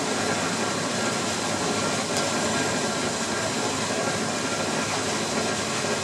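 Water-wheel-driven sawmill machinery running steadily: a continuous even mechanical noise with faint steady tones over it.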